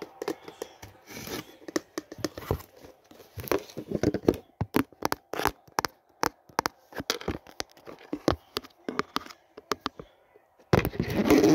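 ASMR handling sounds made close to the microphone: fingers tapping, clicking and scratching on a plastic container, as many quick separate taps. Near the end comes a loud rubbing rustle.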